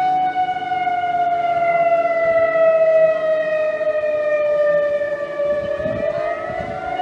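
Tsunami warning siren wailing: one loud tone falling slowly for about five seconds, then rising again near the end.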